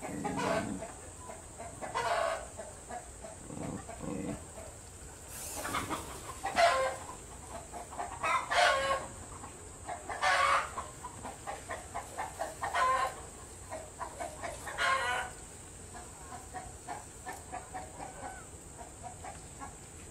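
An animal calling over and over: loud cries about every two seconds, then quicker, softer short calls in the last few seconds.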